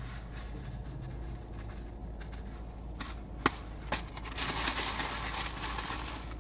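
Mostly quiet at first; about three and a half seconds in come two sharp clicks, then a paper burger wrapper rustling and crinkling in the hands for about two seconds.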